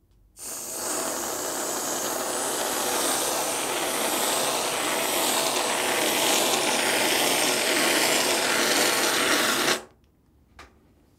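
Aerosol can of whipped cream spraying for about nine seconds: a steady hiss that starts about half a second in and cuts off suddenly near the end.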